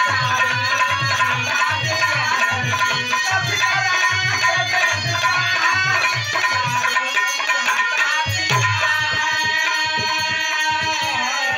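Harmonium and dholak playing together: a steady hand-drum beat under a harmonium melody, with the harmonium settling into a held chord for the last few seconds.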